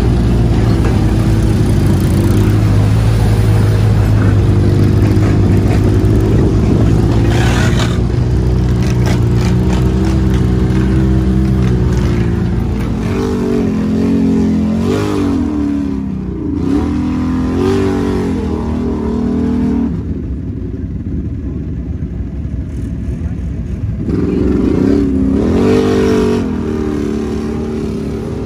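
An off-road vehicle engine runs at a steady pitch for about twelve seconds, then revs up and down repeatedly through the rest, easing off briefly about two-thirds of the way in.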